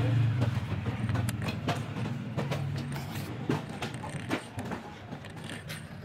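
Small metallic clicks and taps of a screwdriver and brass terminal screws being fitted into a white electrical socket base, over a low rumble that fades after about three seconds.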